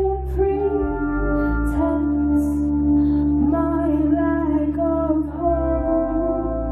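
A woman singing long, held, wordless notes into a microphone over low sustained keyboard chords that change every few seconds.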